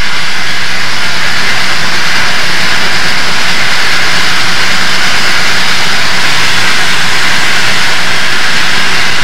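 Southern Pacific AC-11 cab-forward steam locomotive working upgrade, heard from on board as a loud, steady, even roar of running noise and rushing air.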